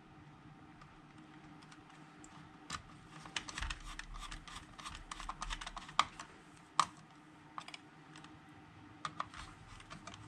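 Hand screwdriver turning self-tapping screws into a Kit-Cat clock's plastic case, making a run of small clicks and scrapes with two sharper clicks a little past the middle. The screws are snugged only lightly, just to the mechanism mount.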